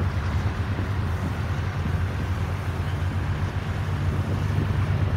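Diesel locomotive of the Thai GEK class running with a steady low engine drone while coupling up cement wagons.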